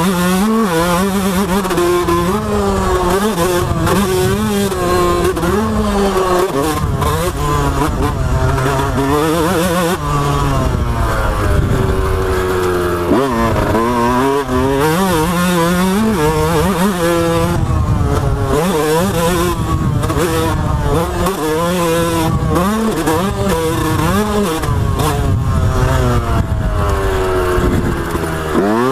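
Yamaha YZ125 two-stroke dirt bike engine ridden hard, its pitch climbing steeply through each gear and dropping off on shifts and throttle chops, over and over. Wind rushes on the bike-mounted microphone.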